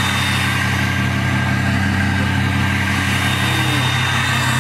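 Ford F-250 pickup's engine idling steadily, heard close at its large octagonal exhaust tip.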